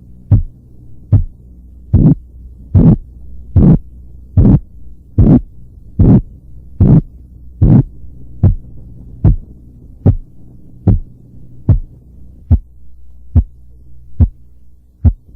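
Korotkoff sounds through a stethoscope over the brachial artery as the blood-pressure cuff deflates: a regular thud about every 0.8 s over a steady low hum. The beats grow louder for the first few seconds, then soften and stop near the end, which marks phase 5, the disappearance of the sounds at diastolic pressure.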